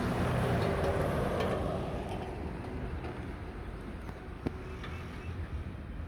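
Mack garbage truck with a McNeilus front-loader body, its diesel engine running as it drives by, the sound fading away over a few seconds. A single sharp knock about four and a half seconds in.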